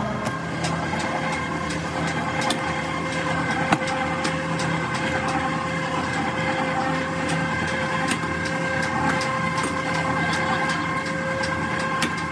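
Steady drone of factory machinery running, holding several constant pitches, with scattered sharp clicks over it.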